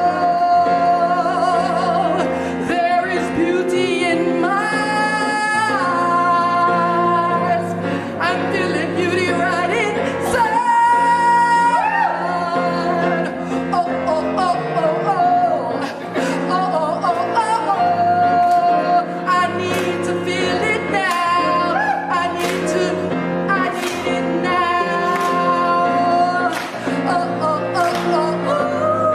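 A woman singing wordless held notes and runs over steady instrumental accompaniment.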